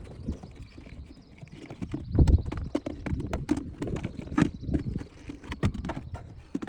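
Irregular clicks and knocks of hand tools and plastic trim parts being handled, several a second, with one heavier thud a couple of seconds in.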